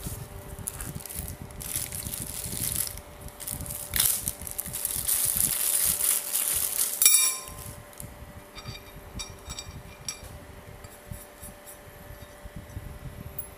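Clear plastic bag crinkling as a wrapped pan handle is handled, building over a few seconds, then a sharp metallic clink that rings briefly about halfway through, followed by a few light ticks.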